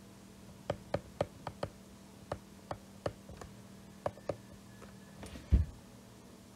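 Stylus nib tapping and clicking on a tablet's glass screen while handwriting, in short sharp ticks at an uneven pace of one to three a second, with one louder dull thump about five and a half seconds in. A faint steady hum lies underneath.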